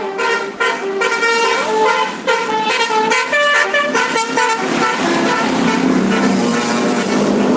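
Bus telolet horn, a multi-tone musical air horn, playing a quick run of changing notes. About five seconds in the tune stops, and a loud steady rushing noise of the bus going by takes over.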